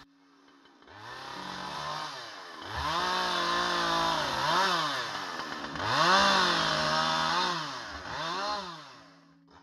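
Husqvarna two-stroke chainsaw trimming branches off white cedar trunks: it starts at idle, is revved up several times, its engine pitch climbing under throttle and dropping back between cuts, then falls back to idle near the end.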